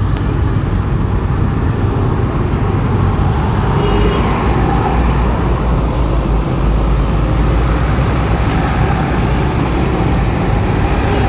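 Steady road and traffic noise heard from a motorbike riding in slow traffic: a continuous low rumble.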